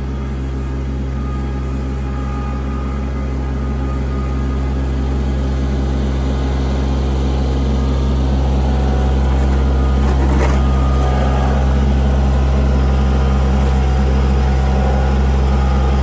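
Kubota compact tractor's diesel engine running steadily as the tractor drives closer under load, growing gradually louder. A few brief rattles come about two-thirds of the way in.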